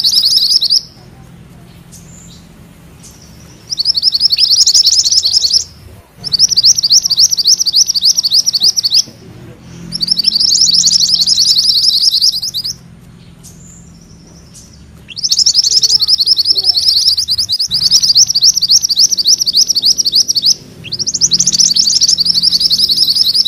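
Mantenan kuning songbird singing its rolling song ('ngerol'): bouts of very rapid, high trilled notes, each lasting one to several seconds, repeated with short pauses in between, six bouts in all.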